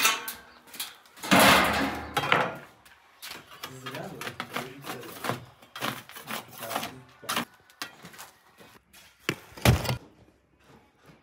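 Wooden knocks, thuds and scraping as a baker works a large clay tandoor, moving its wooden door cover and handling baked flatbreads. A long scrape comes about a second in, and a heavy thud near the end.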